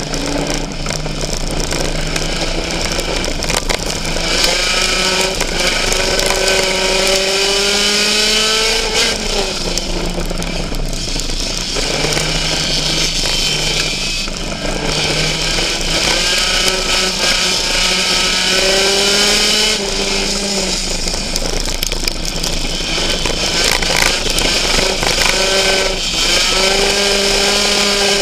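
Race car's engine heard from inside its cockpit during a race, its pitch climbing along the straights and falling back about four times as the driver eases off for the turns, over a steady hiss of track noise.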